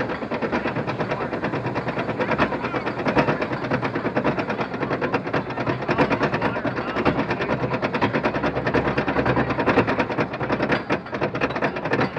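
Arrow mine-train coaster climbing a chain lift hill: a rapid, steady clacking from the lift chain and the anti-rollback dogs under the cars.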